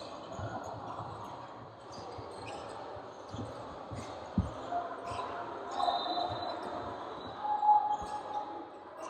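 A basketball dribbled on a hardwood gym floor, a few irregular thumps about a second apart, with short squeaks and players' calls echoing through a large gym.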